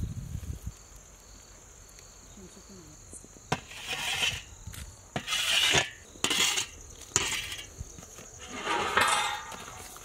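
Hot coals and ash being swept off the metal lid of a dough-sealed dum biryani pot with a round metal scoop: about five scraping swishes in the second half. Behind them is a steady high drone of insects.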